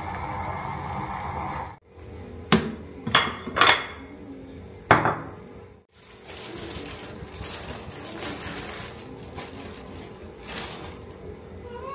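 Strawberry-blueberry jam boiling in a stainless saucepan, a steady bubbling hiss that cuts off after about two seconds. Then four sharp, ringing clinks of kitchenware, followed by quieter handling sounds on a kitchen counter.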